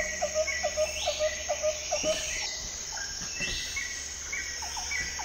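Insects trilling with a steady high hiss, and a short chirping call repeated about four times a second that stops about two seconds in and comes back near the end.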